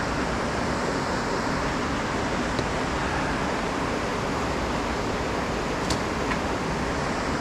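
Steady rushing roar of river rapids, with a few faint clicks about two and a half and six seconds in.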